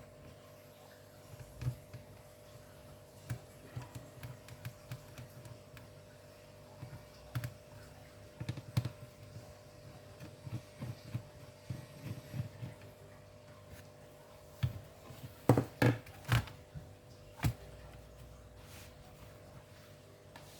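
Hands working on a ThinkPad X240 laptop's plastic case: scattered small clicks, taps and knocks, with a cluster of louder sharp knocks about fifteen to seventeen seconds in, over a faint steady hum.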